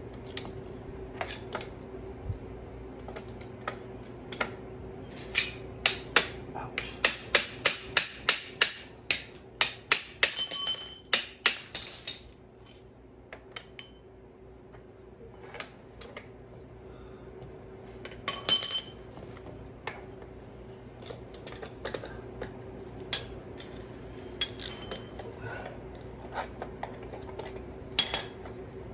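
Hammering on a steel brake caliper assembly: a run of sharp metallic strikes about two a second for several seconds, some of them ringing. A few scattered clinks follow, over a steady low hum.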